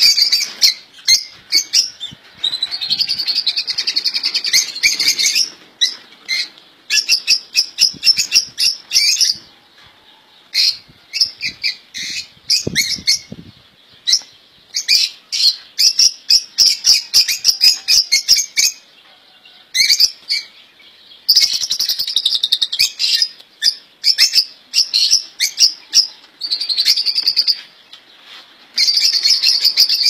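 Caged songbirds singing: quick chirps and long trilled phrases in bursts, broken by short pauses.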